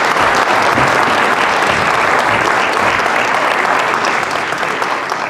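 An audience applauding, with steady clapping that starts to die away near the end.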